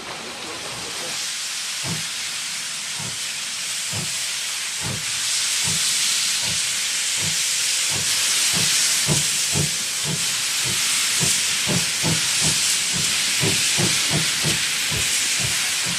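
A steam locomotive working under steam, its exhaust beats quickening from about one a second to two or three a second over a constant loud hiss of escaping steam. It grows louder as it approaches.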